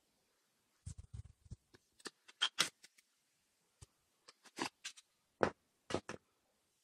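Handling noise from a sneaker and its card hang tag turned in gloved hands: a quick run of soft knocks about a second in, then scattered sharp clicks and rustles, the loudest about two and a half and five and a half seconds in.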